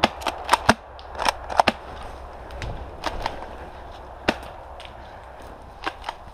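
Airsoft guns firing: about a dozen sharp, irregular cracks, several in quick succession in the first two seconds, then sparser.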